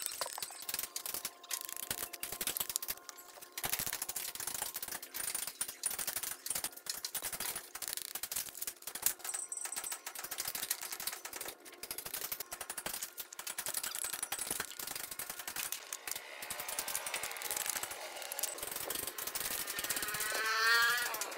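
Steel trowel scraping and tapping on bricks and mortar while bricks are laid on a column: a dense run of quick clicks and scrapes. Near the end a rising whine with several pitches builds and becomes the loudest sound.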